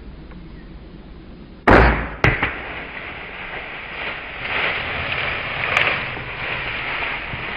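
Barnett crossbow firing with a loud, sudden crack a little under two seconds in, followed by a second sharp crack about half a second later. Then a whitetail buck bounding away through dry brush and weeds, a rough rustling crashing noise.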